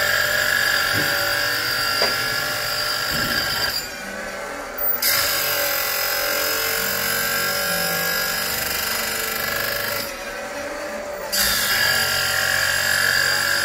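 Oregon automatic saw-chain grinder sharpening a chain: the wheel grinds in long loud stretches with a steady whine, broken by two short quieter pauses about four and ten seconds in, between teeth.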